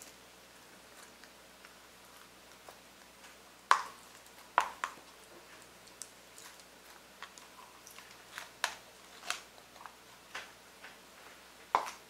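Thick slime being scooped with a plastic spoon and sliding out of a clear plastic cup onto a table, making scattered soft squelches, pops and clicks. The loudest squelches come about four seconds in, again just after, and near the end.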